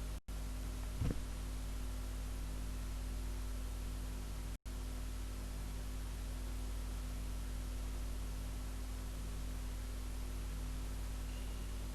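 Steady hiss and low electrical hum from the recording, with one brief low thump about a second in and two split-second dropouts where the sound cuts out.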